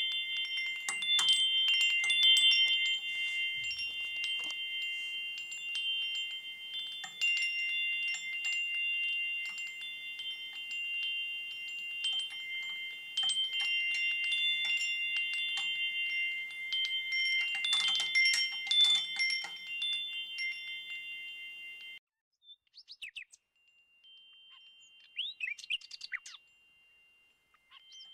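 Chimes ringing: many light strikes, each leaving several high steady tones sounding together. The ringing cuts off suddenly about three-quarters of the way in, leaving a few faint short chirps.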